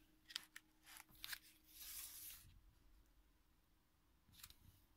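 Faint handling and turning of the thick, painted pages of an art journal: a few short paper crackles, a longer rustle about two seconds in as a page turns over, and another light rustle near the end.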